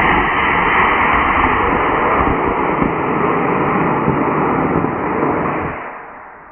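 Mid-power model rocket motor burning at liftoff, a loud steady rushing noise that fades away about six seconds in as the rocket climbs. The motor uses a green-flame propellant that the launchers take to contain copper.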